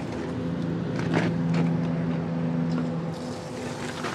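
Engine idling with a steady hum; its lowest tone drops away about three seconds in. A few light metallic clicks come from a fitting being worked under a cementing pump truck.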